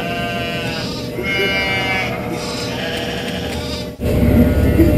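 A woman's high, drawn-out squealing laughter, wavering in pitch and coming in long breaths. About four seconds in it cuts off abruptly, replaced by a louder low rumble of the utility vehicle's engine running.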